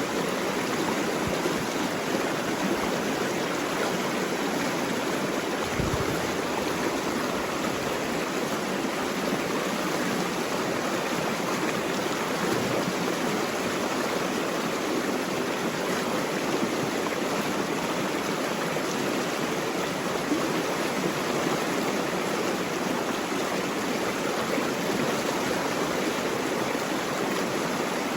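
Flowing water of a stream or small cascade: a steady, even rush with no change.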